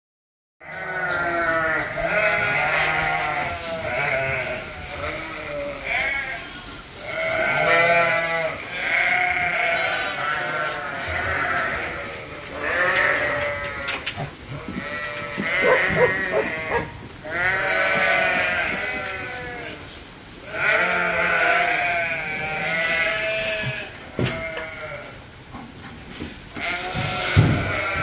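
A flock of sheep and lambs bleating, many wavering calls overlapping one after another, starting after a brief silence.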